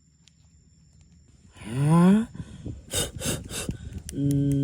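A man's wordless vocal sounds: a short rising "ah" about two seconds in, a few sharp knocks about a second later, then a steady hummed "mmm" near the end.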